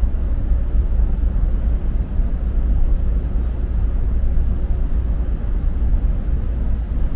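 Steady low rumble with a hiss above it aboard the car ferry MV Armorique as it comes into port: the ship's engines running.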